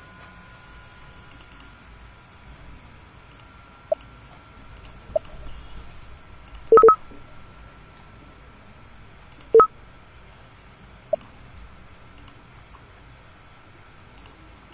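Five short electronic beeps at uneven gaps. The loudest is a quick double beep about seven seconds in, followed by another about two and a half seconds later. Faint mouse clicks run underneath.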